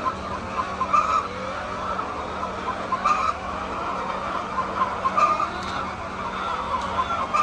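A flock of poultry calling: a constant chatter of small calls, with a loud squawking call about every two seconds.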